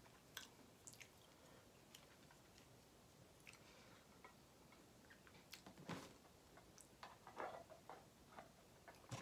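Faint chewing and small wet mouth clicks from a person eating ramen noodles, with a few louder smacks about six seconds in and again around seven to eight seconds in.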